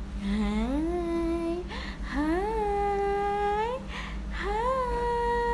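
A woman humming a wordless lullaby melody in three long notes. Each note slides up and is then held, and each sits a step higher than the one before, with audible breaths between them.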